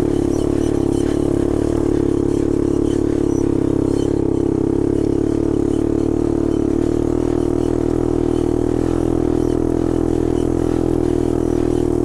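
A 250 ATV's engine running at low, steady revs, holding an even pitch with no revving up or down.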